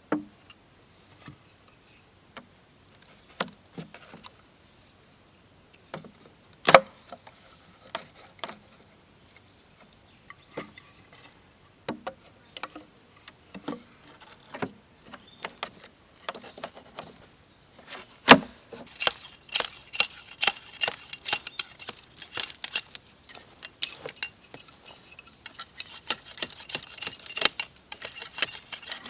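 Bamboo being worked by hand: scattered knocks and taps, two of them much louder, then from about two-thirds through a quick, dense run of sharp clicks and taps. Insects chirr steadily behind it.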